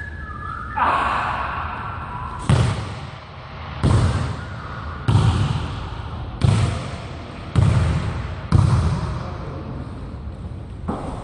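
A basketball bouncing on a hardwood gym floor: a sharp hit about a second in, then six heavy thuds about a second or so apart, each echoing briefly in the hall.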